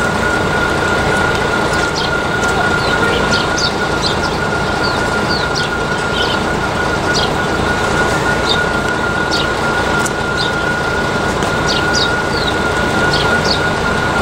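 Barker Technics electronic level-crossing bell (E-Bell) sounding one steady high tone throughout, with small birds chirping irregularly over a steady low rumble of background noise.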